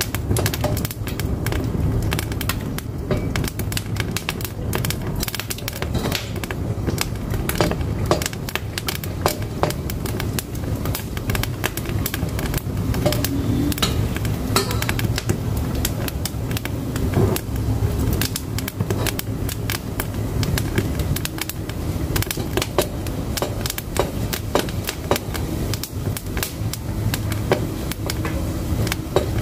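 Firewood burning in a wood-fired cook stove, crackling with frequent irregular sharp snaps and pops over a steady low rumble.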